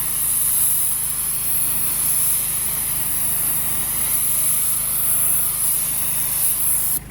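Pressure washer running steadily, its engine humming under the hiss of the water spray rinsing detergent off a brick wall at moderate pressure. Near the end the spray cuts off suddenly while the engine keeps running.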